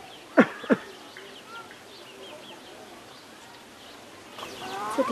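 Faint birds chirping in the background, with two short, loud falling cries about half a second apart near the start.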